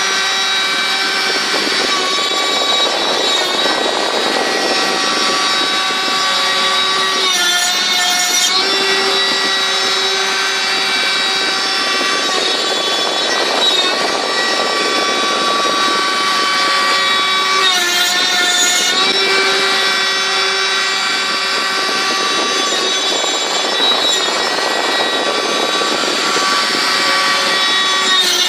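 Homemade CNC router's spindle whining steadily as a 6 mm corn-cob end mill cuts a contour in oak, with a rasping cutting noise under the whine. The whine wavers briefly twice, about 8 and 18 seconds in.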